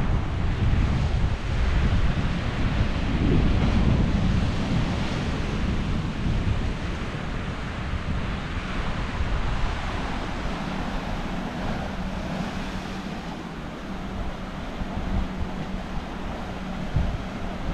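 Wind buffeting the microphone over the wash of Pacific surf, the gusts heaviest in the first few seconds and easing after. A faint steady low hum comes in about ten seconds in.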